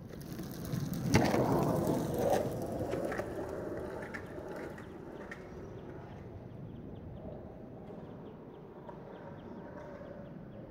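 Wheels rolling over rough asphalt, loudest close by about a second in with two sharp knocks, then fading away.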